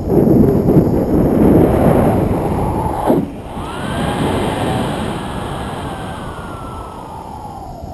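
Wind buffeting the action camera's microphone in flight under a tandem paraglider, heavier for the first three seconds and easing after. A faint tone slowly falls in pitch through the second half.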